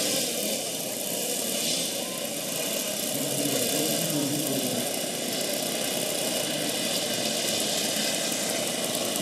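The four engines of a 1:10 scale RC Super Constellation model airliner running at low throttle as it taxis on grass, propellers turning. The engines make a steady hum whose pitch wavers a little.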